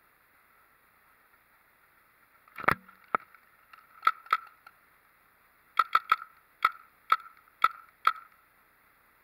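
Paintball marker firing a series of sharp pops, about a dozen in uneven groups, starting a couple of seconds in and ending in a quicker run of seven.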